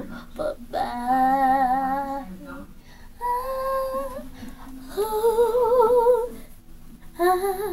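A young girl singing without accompaniment: long, wordless held notes with a wavering vibrato, four phrases with short breaths between them.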